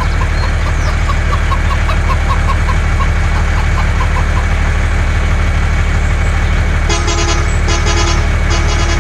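A vehicle engine running steadily, with a horn honking three short times near the end.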